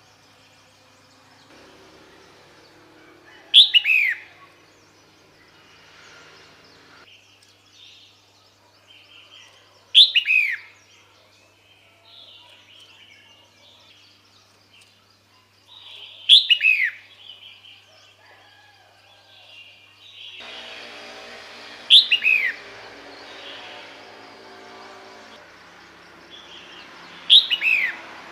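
Female red-whiskered bulbul calling: a short, sharp note sliding downward in pitch, repeated five times about every six seconds.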